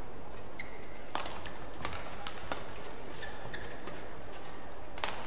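Badminton rackets striking the shuttlecock in a doubles rally: a few sharp cracks, the loudest near the end. Short squeaks of shoes on the court in between, over steady hall ambience.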